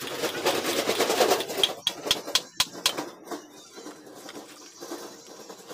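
A hammer knocking on the wooden frame of a table base during assembly: a run of about six sharp knocks in quick succession a couple of seconds in, after a second and a half of dense clattering noise, then lighter, scattered taps.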